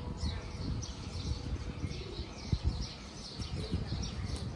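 Small birds chirping in a quick, continuous series of short high chirps, over a low uneven rumble of street noise.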